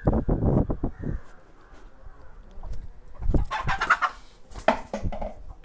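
A hen clucking a few times in the second half, with a quick run of dull knocks and rubbing in the first second.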